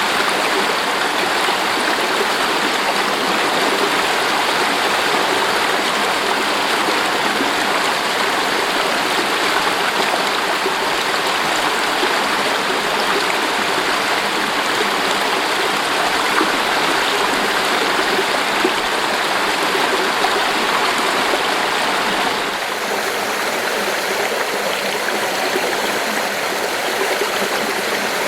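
Mountain stream rushing and splashing over rocks, a steady, dense water noise. About 22 seconds in, the sound changes abruptly and becomes slightly quieter.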